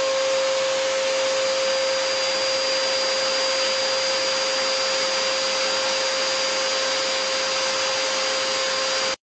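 Upright vacuum cleaner running steadily: a constant motor whine over an even hiss, cutting off suddenly near the end.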